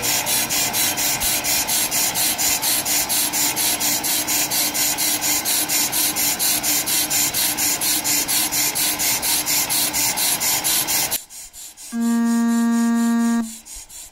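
Pro-Cut PFM 9.2 on-car brake lathe cutting a brake rotor on auto feed: a steady rasping scrape pulsing several times a second over a faint motor hum, on a rotor with more runout than normal. The lathe stops suddenly about eleven seconds in, and a second later a single long electronic beep sounds.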